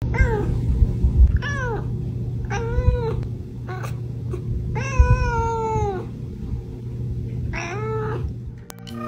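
Calico cat meowing up at its owner for food: five meows, each rising then falling in pitch, the longest about five seconds in.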